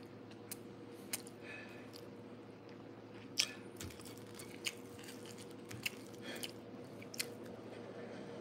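A man chewing a mouthful of rice and fried fish, with wet mouth clicks and smacks at irregular intervals, one sharper than the rest about three and a half seconds in. A faint steady hum lies underneath.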